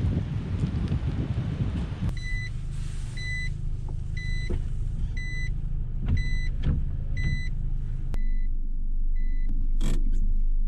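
Inside a Nissan NV200 van with the engine running, an electronic warning beep repeats at one pitch about every 0.7 s over the engine's low hum. The hum deepens and grows louder about eight seconds in, and the beeps fade. The opening two seconds are a noisy rush like rain.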